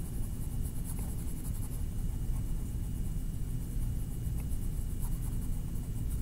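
Faint scratching of a colouring tool shading on paper, over a steady low rumble of room noise.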